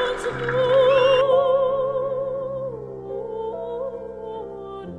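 Background music: a melody with wide vibrato over held chords, fading down over the last few seconds.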